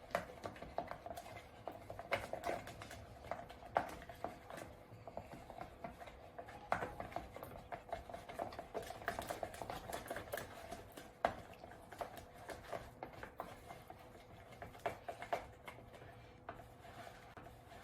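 A spoon stirring white school glue and food colouring in a container: irregular clicks and scrapes of the spoon against the sides, several a second, blending the colour through the glue.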